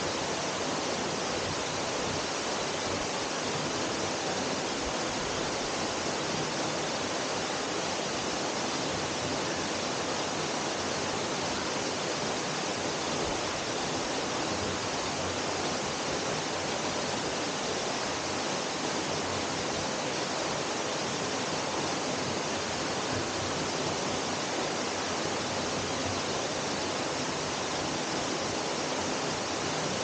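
Waterfall pouring into its plunge pool: a steady, unbroken rush of falling water.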